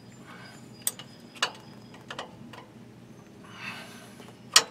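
A few sharp, irregular metal clicks and taps of hand and tool against parts on the engine block while the coolant temperature switch is being fitted. The loudest click comes near the end, just after a short rustle.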